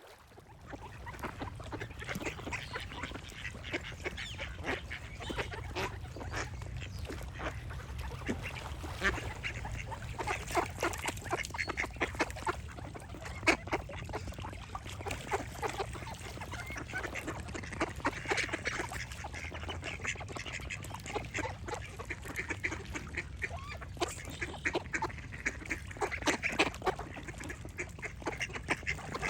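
A flock of ducks quacking, many short calls overlapping without pause, over a steady low rumble; the sound fades in at the start.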